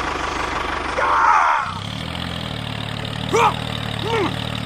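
An engine running steadily with a fast pulsing beat; about a second and a half in its note changes to a smoother, steady hum. Short rising-and-falling chirps sound over it about a second in and twice near the end.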